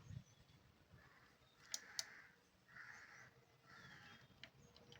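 Near silence: faint room tone with two faint sharp clicks about two seconds in and a few soft rustles.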